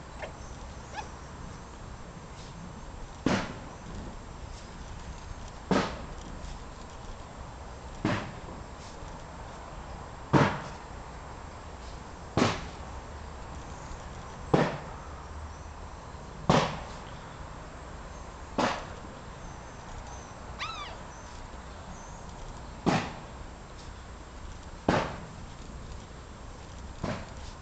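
A sharp knock or snap repeating at a regular pace, about once every two seconds, over a steady low background hiss. About two-thirds of the way through there is one short chirp that rises and falls.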